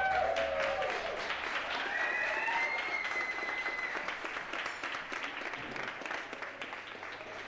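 A crowd applauding, with a few cheering shouts in the first few seconds; the clapping slowly fades.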